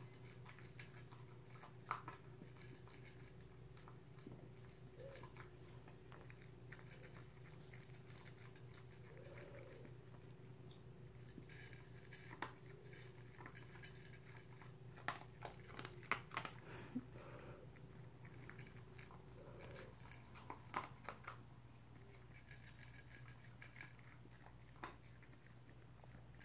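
Toy poodle eating from its food bowl: faint, irregular chewing with small clicks and crunches.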